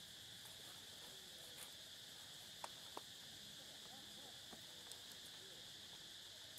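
Steady high-pitched chorus of insects, with two sharp clicks just before three seconds in.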